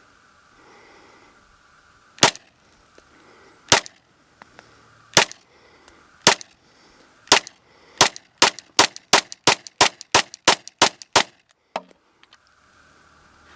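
Glock 19 Gen 3 semi-automatic pistol firing 9mm rounds: five shots spaced a second or more apart, then a quick string of about a dozen shots at roughly four a second.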